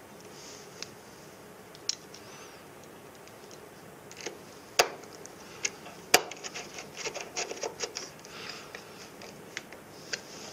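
A hand screwdriver and a small screw working against a sheet-metal panel: scattered small clicks and scrapes, two sharper metal clicks about five and six seconds in, then a quick run of ticks as the screw is turned.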